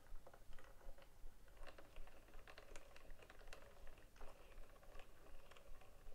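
Two small wooden music boxes being wound by their side handles. The winding mechanisms make soft, irregular ratchet clicks, several a second.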